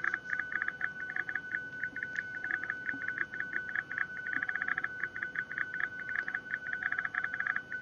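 PSK31 digital-mode data signal carrying an HTML web page over a Baofeng handheld radio link: one steady high tone chopped into rapid, even stuttering pulses, running without a break.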